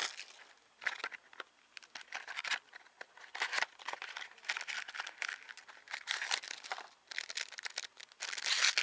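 Card packaging and plastic sleeves crinkling and rustling in short, irregular bursts as trading cards are handled and unwrapped.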